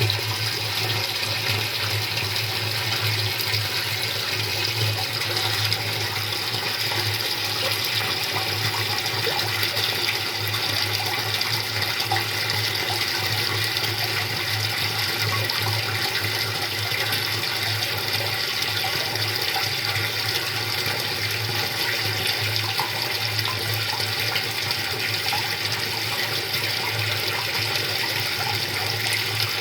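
Storm rainwater from the roofs pouring into a cistern: a steady, unbroken rush of falling water with a constant low hum beneath it.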